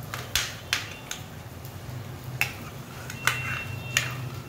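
A metal spoon stirring thin prawn curry in a pot, clinking against the pot in about six sharp taps with a brief high scrape near the end, over a steady low hum.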